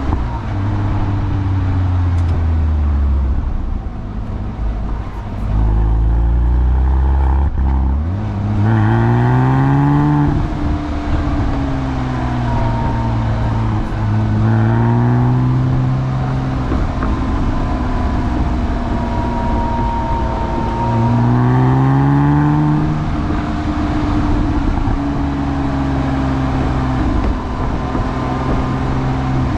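A 2007 Porsche Cayman's 2.7-litre flat-six engine driving through the gears of its manual gearbox. Its pitch rises in several pulls under acceleration and drops back at the shifts and between pulls.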